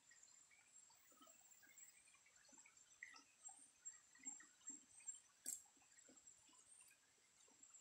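Near silence: faint rustling and patting of dry leaf litter as hands cover a snare, over a steady high-pitched whine, with one sharp click about five and a half seconds in.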